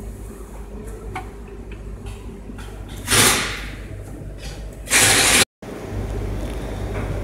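Hands working a special tool fitted over a VW Touran's DSG dual-clutch pack: light metal clicks over a steady low hum, with two loud, brief rushing noises about three and five seconds in.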